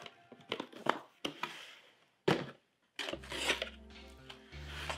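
Cardboard boxes and paper inserts handled by hand: crinkling and scraping with a few sharp taps, the loudest a little over two seconds in.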